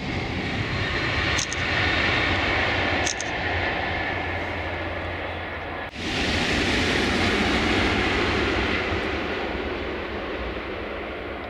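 High-speed electric trains passing at speed with a loud rushing of air and wheels on rail. The sound breaks off sharply about six seconds in, and a second loud passing rush follows that slowly fades.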